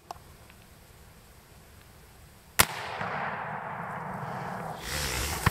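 A single shot from a Marlin 336 lever-action rifle in .30-30, about two and a half seconds in, sharp and loud after a quiet stretch. A few seconds of steady noise follow the shot.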